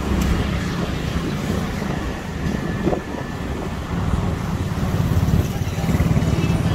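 Outdoor street ambience dominated by a steady, loud low rumble.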